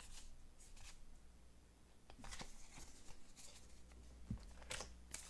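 Faint, scattered rustles and light taps of baseball trading cards being slid and flipped through by hand, over a low steady hum.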